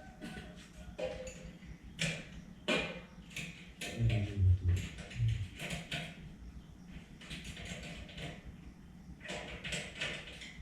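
Scattered clicks, taps and knocks of tools and metal parts being handled, with a brief low hum about four seconds in.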